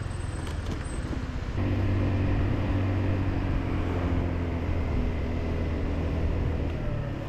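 Motor scooter engine running on the move, with road noise. About a second and a half in, the engine gets louder and then eases off slowly.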